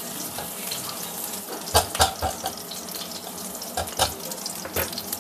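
Chopped ginger and garlic sizzling in hot oil in a frying pan, a steady hiss. Several knocks of a silicone spatula against the pan as they are stirred, around two seconds in and again near the end.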